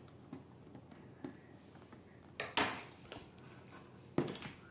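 A few light clicks, then two louder sharp knocks about two and a half and four seconds in, from a laptop being handled and worked on.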